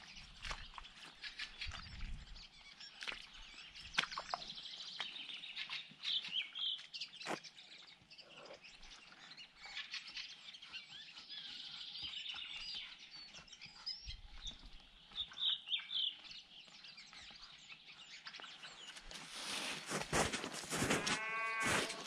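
Many small forest birds chirping and trilling on all sides. Near the end, close crunching footsteps.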